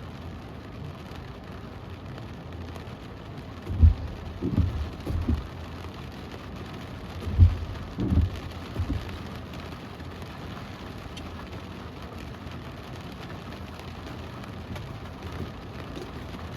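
Steady rain falling, with a few short, low thumps in two clusters, about four and eight seconds in.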